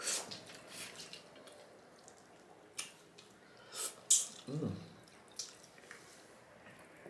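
Wet mouth sounds of eating with the fingers close to the microphone: scattered lip smacks and finger-sucking clicks, the loudest about four seconds in. A short hummed "mm" follows it.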